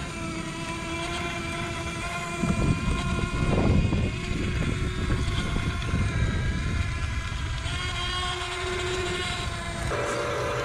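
Small electric gear motors of a 1/24 scale CAT 336 RC excavator whining steadily as the boom, arm and bucket move, the pitch shifting each time a different motion starts. A rougher rush of noise between about two and a half and four seconds in.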